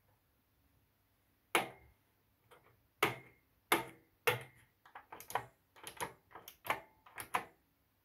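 Front-panel input selector push buttons on an Onkyo A-8220 integrated amplifier being pressed in turn, giving about a dozen sharp clicks that come faster and closer together from about halfway through.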